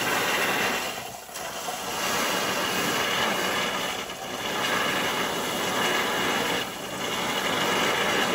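Boiling water and oil poured onto cassava starch, sizzling and crackling loudly as it scalds the starch, easing briefly about every three seconds as it goes in a little at a time.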